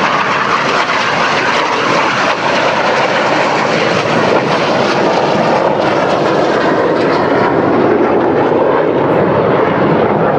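Red Arrows BAE Hawk T1 jet aircraft flying past, a loud continuous jet roar. Its pitch gradually falls through the second half as they pass by.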